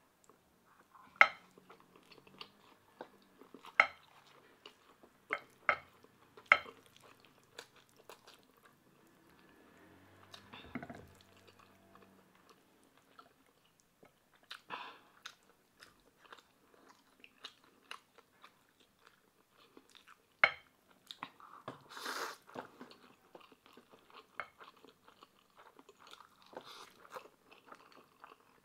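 Close-miked eating: chewing and crunching of black-bean instant noodles and crispy fried pork belly, with a scattering of sharp clicks from wooden chopsticks against a glass sauce bowl and plate.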